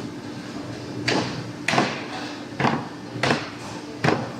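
Five sharp knocks, a little under a second apart, as a car's front bumper is knocked into place.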